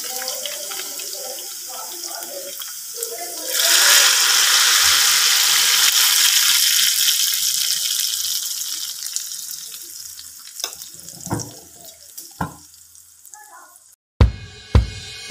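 Hot tarka, oil tempered with whole red chillies and seeds, poured onto cooked daal in a clay pot. It sizzles loudly from about three and a half seconds in and slowly dies away. A few sharp knocks follow near the end, then music with a beat comes in.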